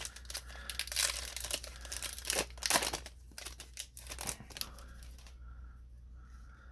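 Foil booster pack wrapper crinkling and tearing open, a dense run of sharp crackles for about four and a half seconds before it quiets.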